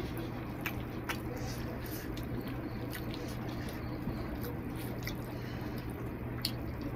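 Fingers squishing and mixing rice with curry gravy on a plate: soft wet squelches with scattered small clicks, over a low steady hum.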